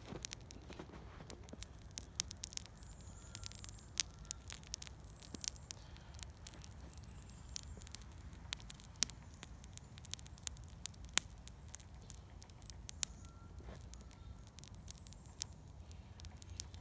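Cardboard roach motel burning in a small open fire, crackling with irregular sharp cracks over a low steady rumble.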